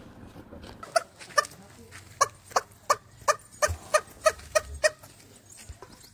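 Turkey calling: a run of about a dozen short, pitched calls, about three a second.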